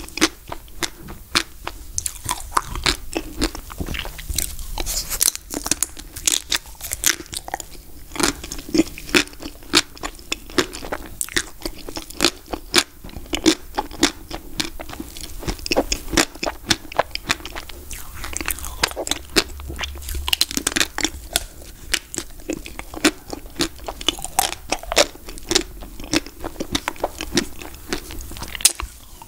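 Close-miked biting and chewing of a Magnum Ruby ice cream bar: the thin ruby chocolate shell cracking and crunching between the teeth over soft ice cream, in a dense run of crisp crackles.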